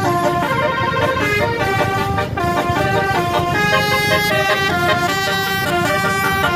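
Telolet basuri musical bus horn playing a quick melody, several tones sounding together and stepping from note to note, over a low rumble.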